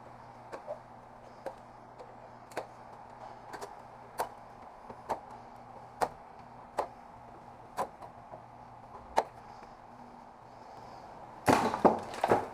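Hand-tool work on a mini-split AC unit being dismantled for scrap: a string of short, sharp clicks and snaps about once a second. A louder clatter of knocks near the end, as parts are handled.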